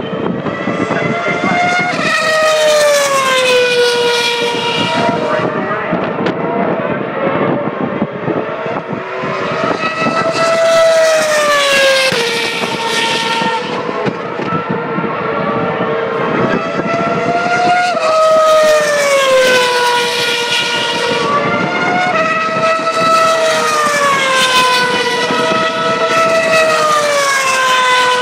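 Formula One cars' 2.4-litre V8 engines running at very high revs as they pass on the circuit, one car after another. The pitch falls in long slides several times and climbs again between them.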